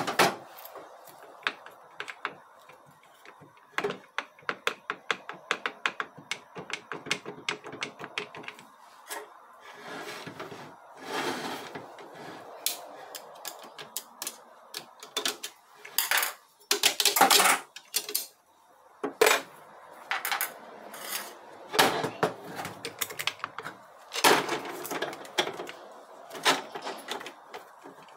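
Steel and friction clutch plates from a 6R80 six-speed automatic transmission's clutch pack clinking against each other and the metal drum as they are pried loose and lifted out by hand. Fast runs of light metallic clicks alternate with several louder clatters.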